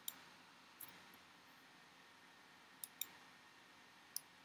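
Near silence with about five faint, sharp clicks of a computer mouse, two of them close together about three seconds in.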